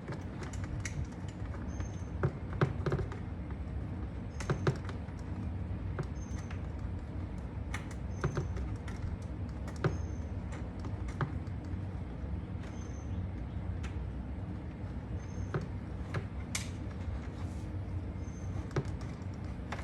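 Scattered small clicks and taps of plastic and metal parts being handled and fitted into a golf cart dash, over a steady low hum.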